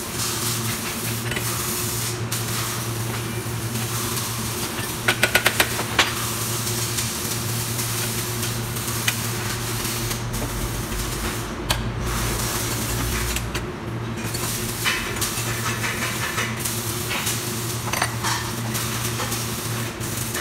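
Steel parts clinking and clattering as they are picked from a bin and set into a welding jig, with a quick run of about five metal clicks around five seconds in and a few single knocks later. A steady factory hum and hiss runs underneath.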